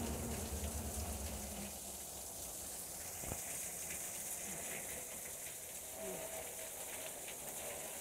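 Steady hiss of water running and trickling under the ice of a frozen waterfall, with one faint click about three seconds in.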